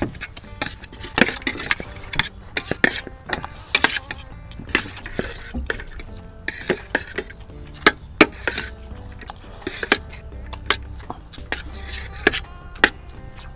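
Eating utensils clinking and clicking against bowls in quick, irregular strokes, several a second, as people shovel in food during a speed-eating challenge.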